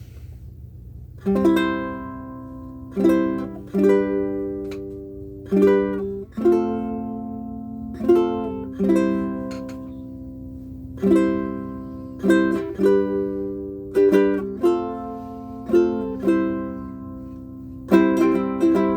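Baton Rouge UTM-C concert ukulele with a solid spruce top and maple back and sides, strung for low G, played as slow strummed and plucked chords that ring out and fade, starting about a second in. The chords come quicker near the end.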